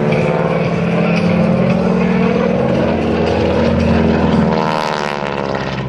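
North American T-6 Texan's 600-horsepower Pratt & Whitney R-1340 nine-cylinder radial engine and propeller running at high power through an aerobatic pass. The pitch rises as it closes, then drops at the loudest point about four and a half seconds in, and the sound eases as it passes away.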